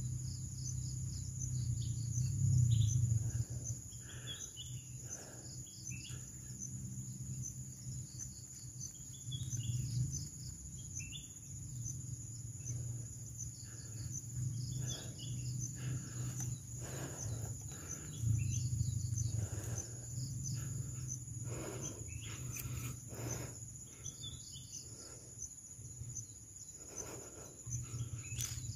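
Forest ambience: insects trill steadily at a high pitch while birds give scattered short chirps over a low rumble that comes and goes, with soft rustles. There is a sharp click about three-quarters of the way in and another right at the end.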